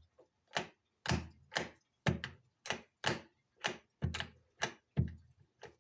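Fridge door light switch being pushed in and released over and over, giving a series of sharp clicks about twice a second, each switching the light off and on.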